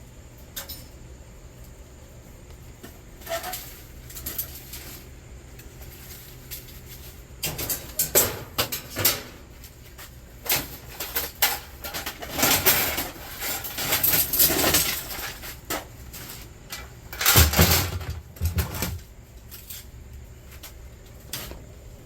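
Scrap metal being handled and pulled apart: a run of sharp knocks and clatter from about seven seconds in, with a couple of heavy thuds near the end.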